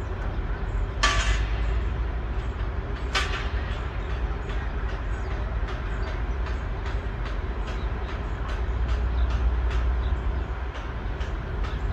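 Heavy diesel engine running with a steady low rumble, broken by two short sharp hissing noises about one and three seconds in, and a light regular ticking of about two to three a second from about halfway on.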